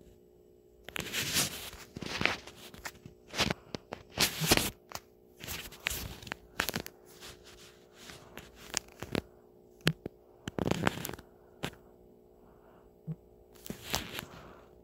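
Irregular scraping and rustling bursts with a few sharp clicks: handling noise from fingers tapping and dragging across a phone's touchscreen near its microphone.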